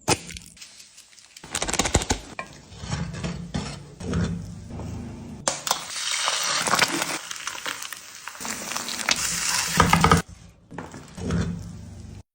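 Food sizzling in a frying pan, with a utensil clinking and scraping against the pan as it is stirred. The sizzle grows louder and denser in the middle and cuts off shortly before the end.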